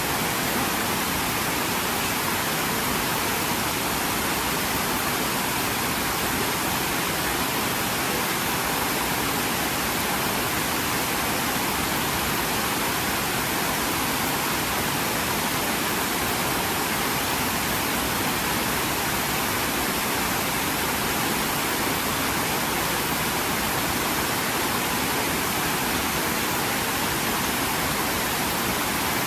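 Waterfall rushing steadily, an even hiss of falling water that never changes, more hiss than rumble.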